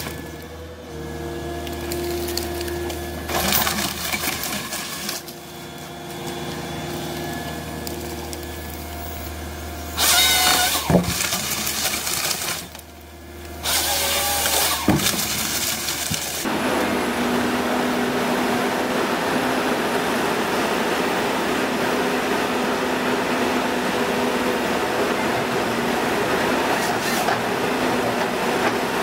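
Forestry harvester at work: the engine and hydraulics run while the harvester head feeds and saws through log stems, giving loud spells of sawing and feed-roller rattle a few seconds in, about ten seconds in and about fourteen seconds in. About sixteen seconds in this changes abruptly to the steady engine drone of a wheeled harvester.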